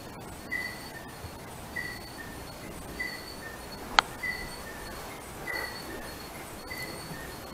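A short high chirp repeating steadily about once every second and a quarter, with a single sharp click about four seconds in.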